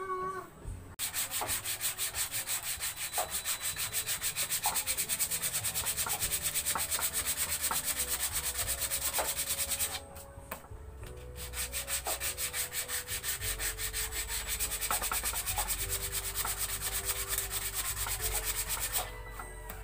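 Sandpaper rubbed by hand briskly back and forth over a painted wooden frame, at about five strokes a second. It stops for about a second midway, then resumes.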